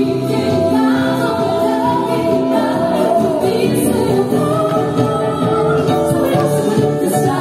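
Live band music with a singer, amplified through a PA system: sustained sung notes over a steady band accompaniment.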